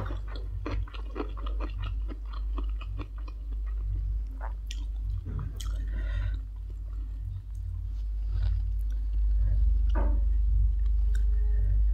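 Close-miked chewing of a mouthful of stir-fried instant noodles and papaya salad, with scattered short wet mouth clicks, over a steady low hum.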